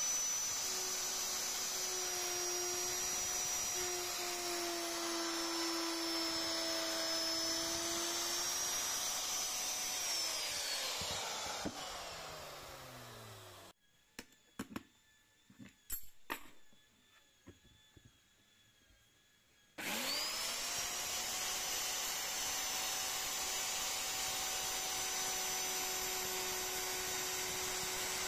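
Handheld electric wood router running at full speed with a steady high whine, then switched off about ten seconds in, its whine falling as it spins down. A few seconds of light clicks and knocks follow, then the router starts again, its whine rising quickly to full speed and running steadily.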